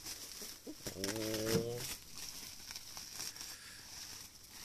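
Plastic bag crinkling and rustling in short spells, with a brief low voice about a second in.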